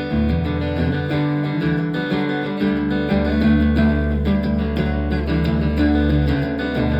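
Instrumental break in a live rock song: guitars strumming and playing held chords over a strong low end, with no singing.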